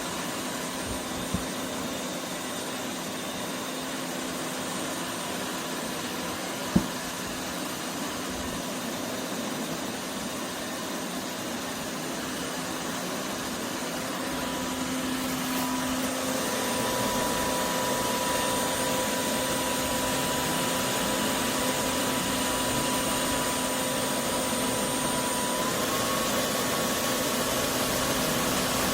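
Roborock F25 GT cordless wet-dry vacuum mop running with a steady motor whine and hiss. It grows louder about halfway through and steps up slightly in pitch near the end, with two sharp clicks early on.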